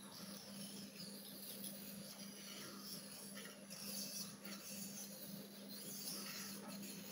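Faint scraping of a steel knife blade drawn across a sharpening stone, in irregular strokes, over a steady low hum.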